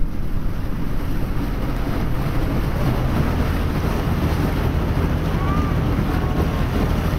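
A boat under way: a steady engine hum under water rushing past the hull, with wind buffeting the microphone.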